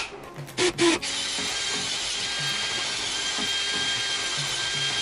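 Nanwei cordless drill with a larger masonry bit boring into a concrete wall, enlarging a hole for a wall anchor. It starts about a second in and runs steadily with a high motor whine.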